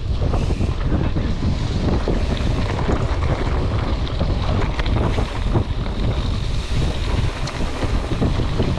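Wind buffeting the microphone as a Trek Marlin 7 mountain bike rolls over a loose gravel road, its tyres crunching and the bike rattling in a steady stream of small crackles under a heavy low rumble.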